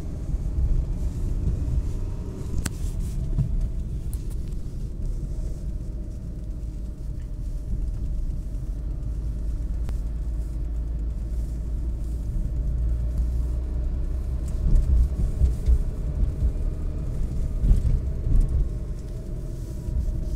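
Alfa Romeo 156 Cup race car driving slowly, heard from inside the cabin: a steady low engine and road rumble, with a few louder low thumps in the second half.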